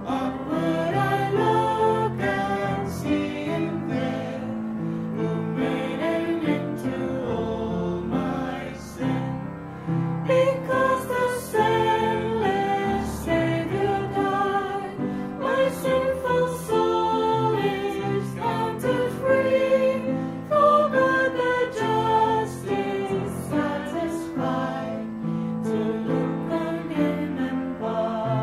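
Church music: a group of voices singing a hymn over instrumental accompaniment.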